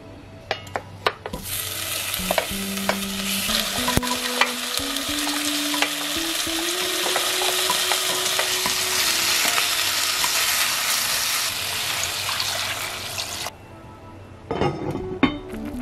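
Food sizzling as it is fried and stirred in a hot pan. The sizzle starts about a second and a half in after a few clicks, stops abruptly near the end, and a few more clicks follow.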